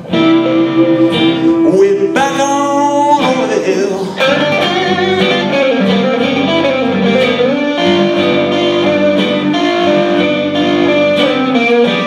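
Two electric guitars playing a blues, a lead guitar bending notes over the other's rhythm part.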